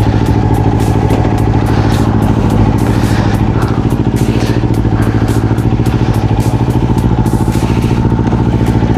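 Motorcycle engine idling steadily at one unchanging pitch, loud and close.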